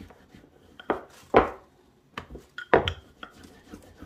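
Wooden rolling pin rolled and pressed over a slice of white sandwich bread on a worktop: several soft knocks and rubs, the loudest about a second and a half in.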